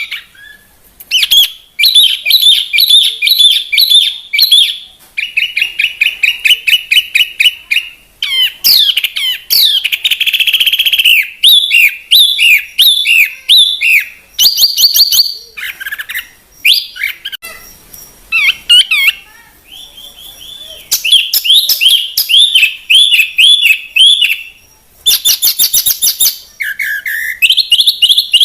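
A songbird singing a long, fast and varied song: runs of rapidly repeated notes, chattering trills and short downward-slurred whistles in phrases broken by brief pauses. It is a masteran birdsong track, the kind played to caged songbirds to teach them a song.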